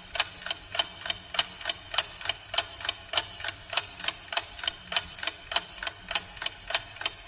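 Clock ticking steadily, about three ticks a second, as a waiting-time tick while a riddle is to be guessed.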